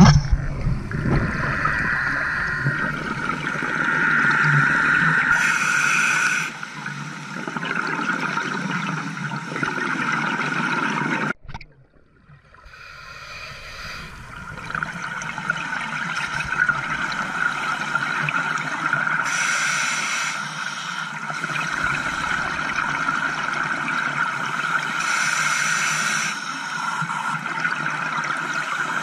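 Underwater sound on a scuba diver's camera: a steady hissing, gurgling wash, with three louder bursts of exhaled bubbles from the diver's regulator. The sound cuts out suddenly a little before the middle and fades back in.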